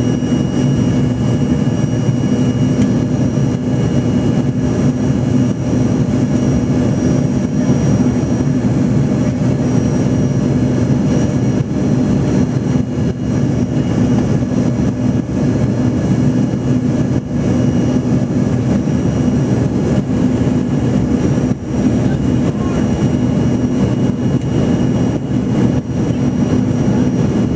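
Cabin noise of a jet airliner climbing after takeoff, heard from inside at a window seat: a loud, steady low drone from the engines and airflow, with a thin, steady high whine over it.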